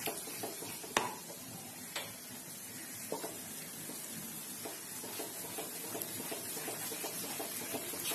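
Wet ground paste sizzling in hot mustard oil while a wooden spatula stirs and scrapes it round the pan, with a few sharp knocks of the spatula on the pan, the loudest about a second in. The sizzle is the water from the paste being fried off.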